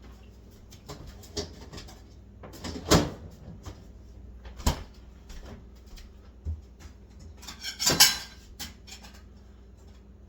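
Kitchen handling noises: a few separate knocks and bumps, with a longer rattling clatter about eight seconds in, as items such as a plate, bowl and utensils are set out.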